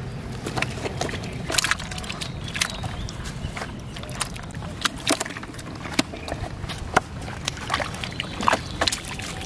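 Muddy water sloshing and splashing as live fish thrash in a plastic bucket, a rapid irregular string of wet slaps and splashes; near the end the bucket is tipped and the fish and water spill out onto the mud.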